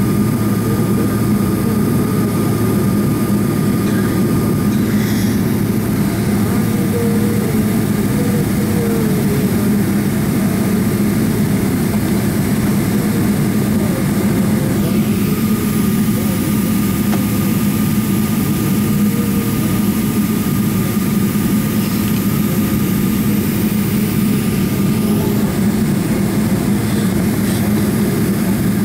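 Steady, loud drone of engine and airflow noise inside the cabin of a Boeing 777-300ER airliner, with a thin steady whine above the low rumble.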